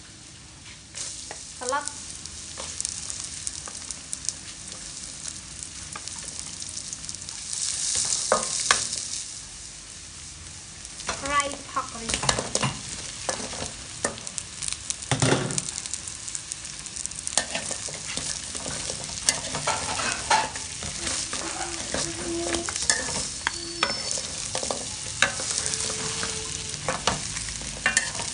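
Garlic and onion sizzling in hot soybean oil in a steel wok, with a spatula scraping and clicking against the metal as it stirs. About halfway through, a batch of fried pork ribs is tipped in from a wire skimmer with a heavy thud, and the stirring and sizzling go on.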